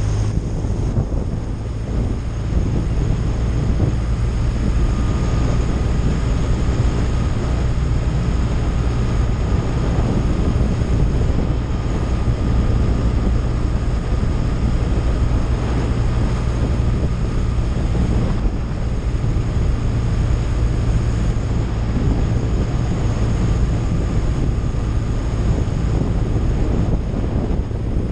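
Touring motorcycle riding at a steady cruising speed: engine running evenly under wind rushing over the microphone.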